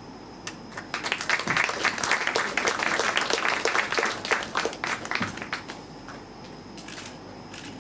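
Audience applauding, starting about a second in and dying away after about five seconds.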